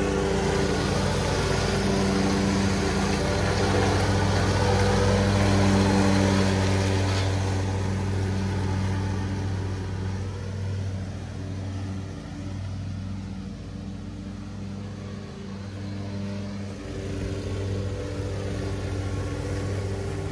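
Commercial riding lawn mower's engine running steadily under load as it cuts tall, wet grass at the highest deck setting. It grows loudest a few seconds in as the mower passes close, then fades somewhat as it moves away.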